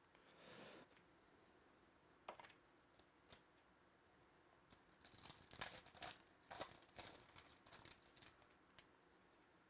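Foil wrapper of a Panini Certified Cuts football card pack crinkling and tearing as it is opened by hand, in a run of crisp crackles over about three seconds in the second half, after a soft swish and a few light clicks of cards being handled.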